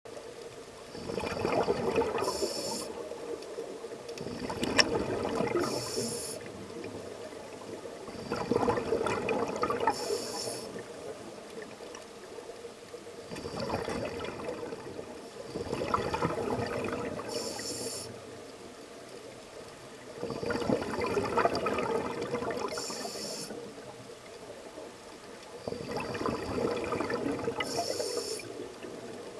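Open-circuit scuba breathing underwater: bursts of exhaled bubbles rumbling out of the regulator, each with a short hiss of the demand valve as the diver inhales, about six breaths, one every five seconds or so. A single sharp click about five seconds in.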